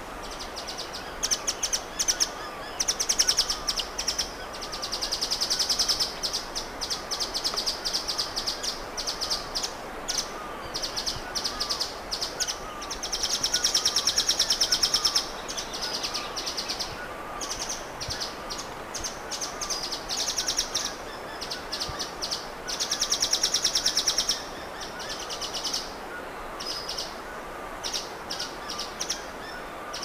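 Nuthatch calling in bursts of rapid, high-pitched trilled notes, some brief and some running for about two seconds, repeated many times. A softer, lower note repeats steadily underneath.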